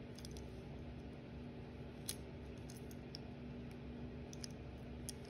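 Scattered light metallic clicks and ticks from the small parts of a partly assembled RG Model 23 .22 revolver being fitted by hand as the hammer and trigger are worked into place, the sharpest click about two seconds in, over a steady low hum.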